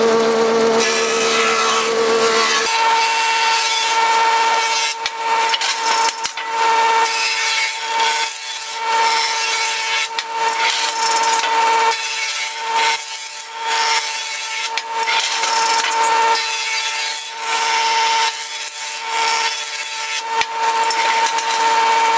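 Benchtop jointer running with a steady motor whine while a board is pushed across its cutterhead, the knives shaving the edge flat and square. The cutting noise is loud and dips briefly every second or two.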